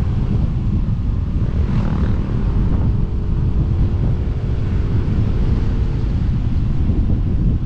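Wind rushing over the microphone on a moving motorcycle, with a steady engine drone through most of the ride.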